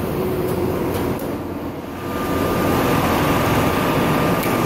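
Richpeace CNC automatic pattern sewing machine running, its sewing head stitching through a clamped template, over steady factory machine hum. The running gets louder about two seconds in, with a thin steady whine from then on.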